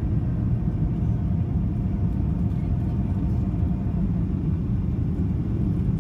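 Steady low rumble of a Boeing 737-800's CFM56 engines and airflow heard inside the passenger cabin, with a faint whine that fades out about four seconds in.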